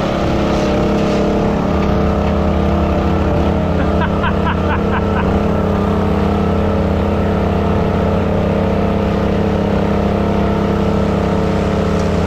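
Tractor diesel engine running hard under heavy load, a loud, steady drone with no change in pitch. A short run of high squeaks comes about four seconds in.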